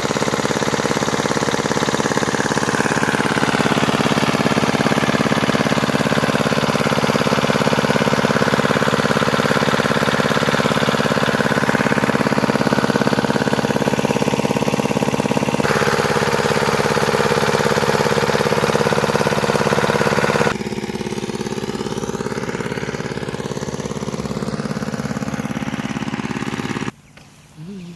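An engine runs steadily with a constant hum, changing character abruptly about 16 and 21 seconds in and falling away to a much quieter sound near the end.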